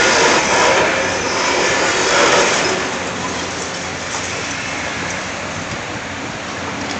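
Hydraulic crusher jaws on a long-reach demolition excavator chewing through a building's concrete floor slabs, a dense crunching and grinding noise over the machine's running engine. It is loudest and roughest in the first two or three seconds, then settles to a steadier din.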